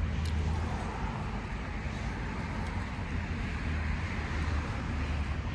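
Steady background road traffic noise.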